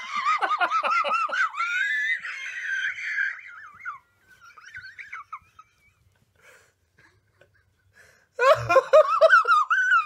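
A person laughing hard in a high-pitched voice: a long run of quick ha-ha pulses that trails off about four seconds in, then a second burst of laughter near the end.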